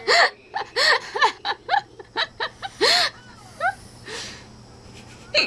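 A girl with the hiccups giggling in a quick run of short, high-pitched bursts, dying away after about four seconds.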